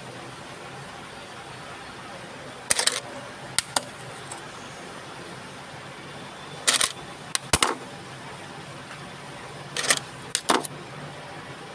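Short, sharp clinks and rustles from hands working the hair, in three clusters a few seconds apart, over a steady low hum.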